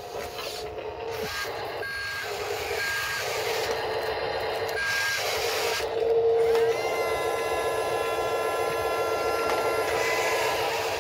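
Huina 583 radio-controlled wheel loader running, its electric drive motors and gears giving a steady whirring whine, with a few short, high electronic beeps in the first half.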